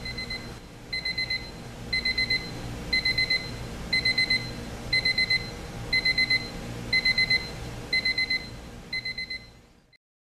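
Seiko QHE087KLH alarm clock's electronic beep alarm sounding: a high beep in bursts of about four quick beeps, one burst every second.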